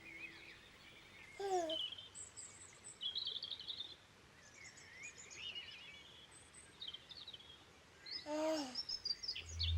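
Birds chirping and singing faintly, with short trills and a few louder bursts of calls, the loudest about a second and a half in and near the end.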